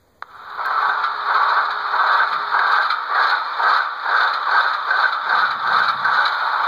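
Tsunami sound decoder in an HO-scale Athearn ES44AC model locomotive playing its diesel engine start-up sound through the model's small speaker. It comes on suddenly with a click just after the start and then runs steadily, pulsing about three times a second, with little bass.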